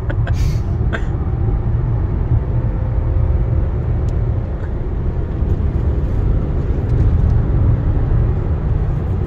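Cabin noise inside a Mercedes A-Class driven hard: a steady, heavy low rumble of engine, tyres and road, with a faint steady engine tone above it.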